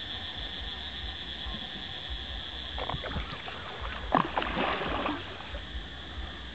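A large hooked arapaima splashing and swirling at the surface as it fights the line, in a burst of about two seconds with the loudest splash in the middle.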